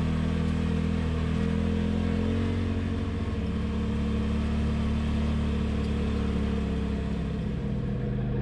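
Polaris RZR Pro XP side-by-side's engine running steadily while driving, its note shifting in pitch a couple of times, around three seconds in and again near the end.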